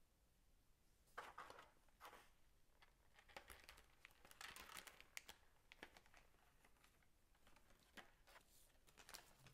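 Faint crinkling of a thin clear plastic bag handled in the fingers as an action figure is slid out of it: irregular crackles and rustles starting about a second in.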